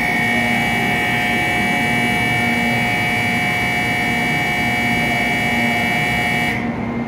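Shinkansen platform departure bell ringing continuously for about six and a half seconds, then cutting off abruptly: the signal that the train is about to leave and its doors will close.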